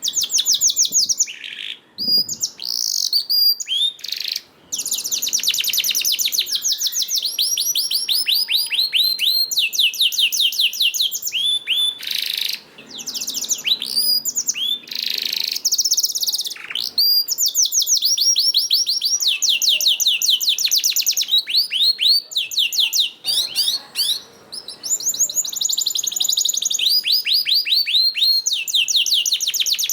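Domestic canary singing a long, nearly unbroken song of rapid rolled trills, each made of quickly repeated high notes, with a few brief pauses between phrases.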